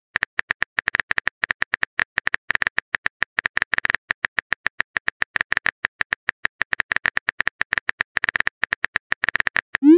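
Phone keyboard typing sound effect: quick, uneven clicks, several a second, each the same sharp tick. A short rising swoosh near the end marks the message being sent.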